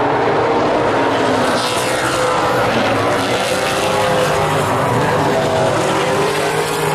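Several super late model race cars' V8 engines running at racing speed as they go past, several engine notes at once, their pitch rising and falling as the cars pass.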